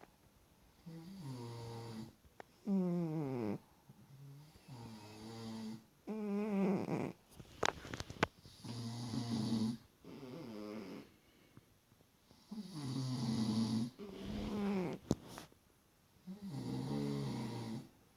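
Snoring in slow, regular breaths, about one snore every two seconds, each lasting a second or so, some sliding down in pitch. A few short sharp clicks fall between the snores.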